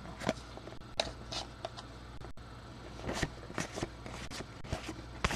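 A stack of Topps Allen & Ginter baseball cards being flipped through by hand: soft, irregular papery swishes and light ticks as each card slides off the stack, over a faint low hum.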